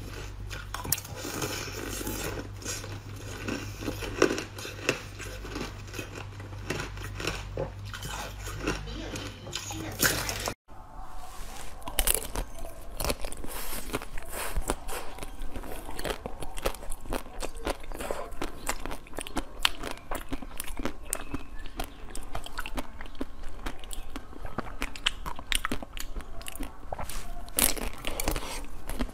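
Close, dense crunching and crackling as frozen ice is bitten and chewed, first ice balls packed with seeds, then frozen striped rolls after an abrupt cut about a third of the way in. A low steady hum sits under the first part and stops at the cut.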